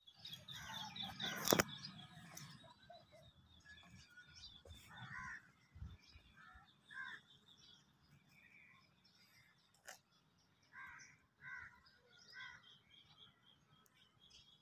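Garden birds calling: a rapid run of high chirps at first, then about seven separate louder calls spaced through the rest. A sharp knock about one and a half seconds in is the loudest sound.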